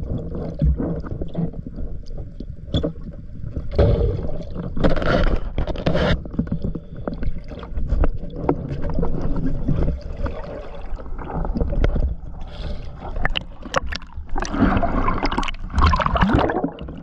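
Water heard through an underwater camera: a low churning rumble of water against the housing, with scattered clicks and knocks, and two longer rushing bursts, about four seconds in and again near the end.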